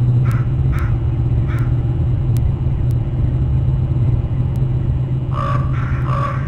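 Crows cawing in agitation: a few harsh caws in the first two seconds, then a quick run of caws near the end. The calls sit over a steady low rumble.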